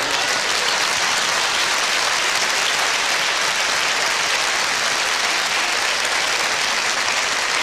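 Large theatre audience applauding, a steady round of clapping that starts sharply and holds at an even level throughout.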